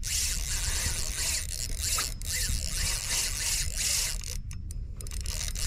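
Fishing reel being cranked, its gears whirring and ticking as line is wound in, with brief stops from about four seconds in.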